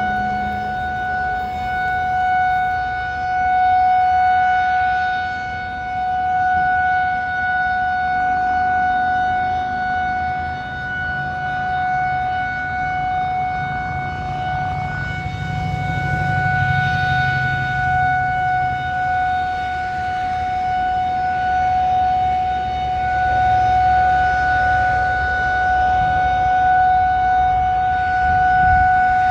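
Federal Signal 2001-130 outdoor warning siren holding one steady tone at full pitch. It does not swell and fade the way a turning siren does, because its rotation is broken and the horn stays pointed one way. A low rumble rises under it around the middle.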